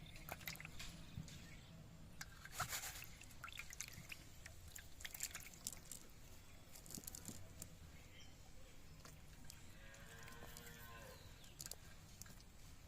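A single drawn-out animal call of about a second, near ten seconds in, among scattered faint clicks and knocks.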